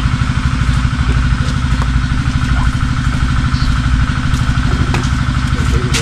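A small engine running steadily at an even speed, with a fast, regular low chugging and a steady higher whine over it.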